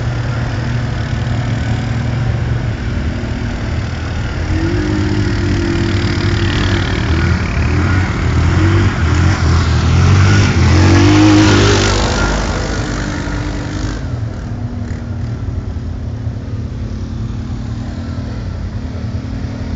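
ATV engine running, working harder and louder in the middle, then easing back to a steadier, quieter running pace for the last few seconds.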